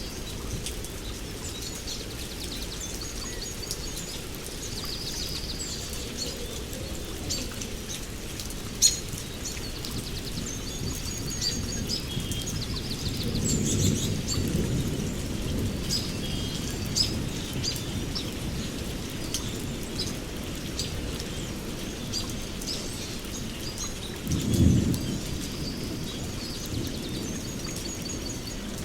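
Heavy rain falling steadily on forest leaves and branches, with birds chirping and trilling high above it throughout. Two short low rumbles come through, one about halfway and a louder one near the end, and there is one sharp tick about nine seconds in.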